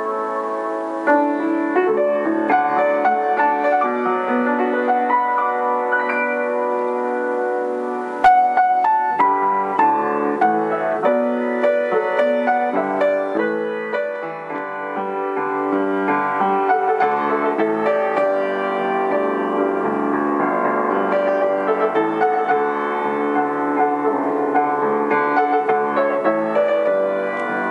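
Piano music: a flowing run of notes at an even level, with one short click about eight seconds in.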